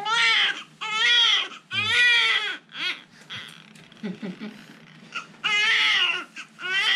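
Newborn baby crying: a string of short wailing cries, each rising and falling in pitch, four in the first three seconds, then a pause of about two seconds with small whimpers, then two more cries near the end.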